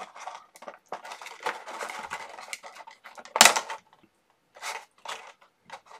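Hard plastic model-kit parts being handled and set against each other: light rustling and small clicks, with one louder clatter about three and a half seconds in.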